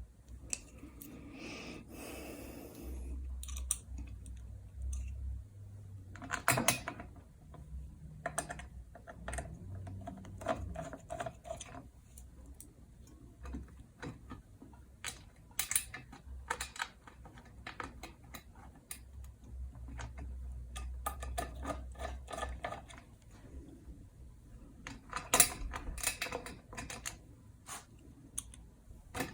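Ceiling fan parts being handled and fitted together: scattered clicks, taps and small rattles of plastic and metal pieces, in clusters, with a faint low hum beneath.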